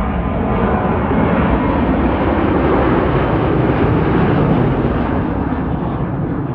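Boeing 737-800's CFM56-7B turbofan engines at takeoff thrust: a loud, steady jet roar that swells to its loudest about four seconds in, then begins to fade.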